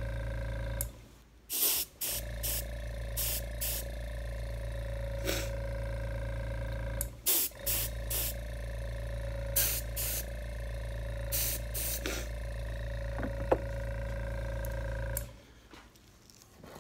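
Small air compressor running with a steady hum while a gravity-feed spray gun gives about a dozen short hissing bursts as it sprays DuraCoat flat black gun coating. The hum cuts out briefly twice and stops near the end.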